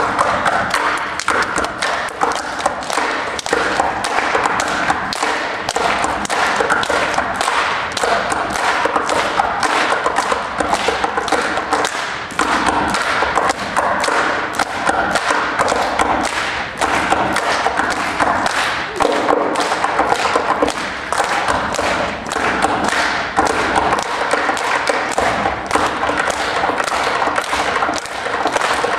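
Tap shoes striking the stage floor in a rapid, continuous run of taps, several a second.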